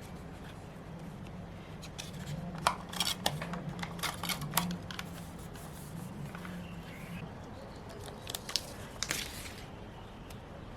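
Scissors snipping paper with short quick cuts, a cluster in the first half and a few more later, over a low steady hum.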